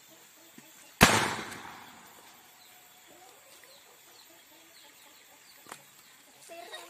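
A lodong, a homemade cannon fuelled with methylated spirit, fires once about a second in: a single loud, thunderous boom that rings out and dies away over about a second.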